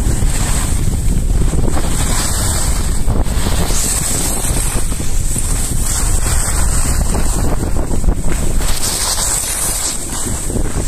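Wind buffeting the microphone of a camera carried by a skier moving downhill, a steady heavy rumble, over the hiss of skis sliding and carving on packed snow.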